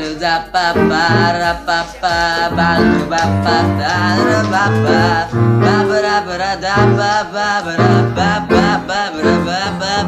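A song playing: a sung voice over instruments, with a steady line of low notes.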